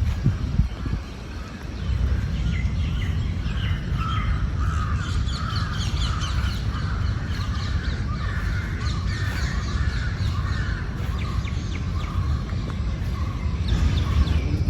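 Birds calling together, many short repeated calls overlapping, starting about two seconds in, over a steady low rumble.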